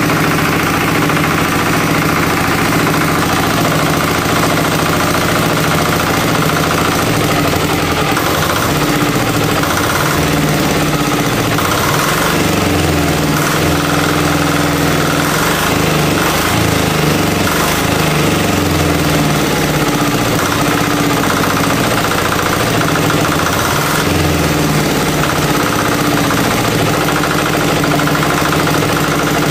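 186FAE single-cylinder air-cooled diesel engine running steadily, its speed wavering up and down for a while in the middle.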